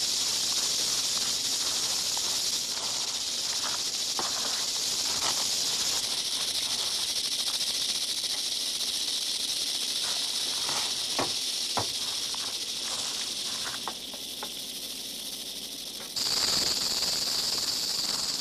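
Western diamondback rattlesnakes rattling: a continuous high, dry buzz, a defensive warning from disturbed snakes. It grows louder about two seconds before the end, with a few faint clicks and taps scattered through it.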